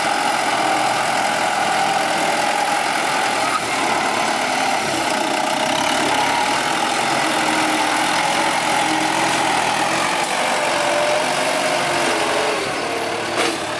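Kubota M9540 tractor's diesel engine running steadily as the tractor pushes and levels earth with its front blade. There is a short click near the end.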